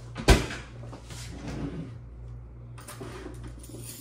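Kitchen items being handled: one sharp knock a moment in, then quieter clatter and rustling, over a steady low hum.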